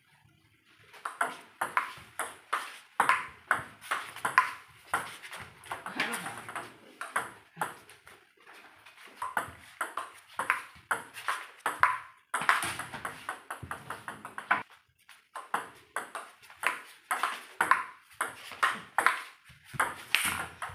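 Table tennis ball clicking back and forth off the paddles and the table in fast rallies, with a short break between points about two-thirds of the way through.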